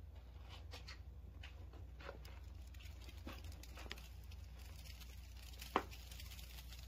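Snow falling: faint, scattered soft ticks and crackles over a steady low hum, with one sharper click a little before the end.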